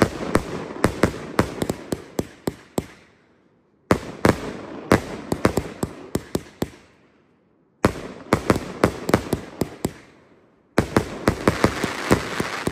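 A 36-shot consumer firework cake firing: rapid sharp bangs and crackling shell breaks, coming in several runs of a few seconds each with brief quiet breaks between them.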